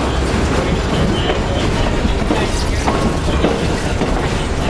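Alaska Railroad passenger train running, a steady low rumble with scattered clicks and knocks from the wheels and cars.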